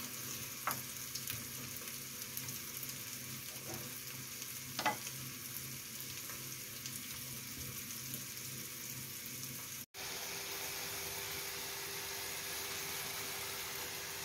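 An egg frying on top of onion and wild asparagus in a pan on a gas hob, with a steady sizzle, and a few light knocks of the wooden spatula against the pan in the first five seconds. About ten seconds in, the sound drops out for a moment, then the sizzle goes on steadily with a faint hum beneath it.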